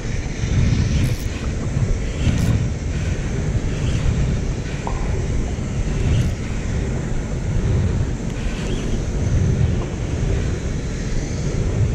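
Wind buffeting the microphone in a low rumble that swells and eases in gusts, over open water.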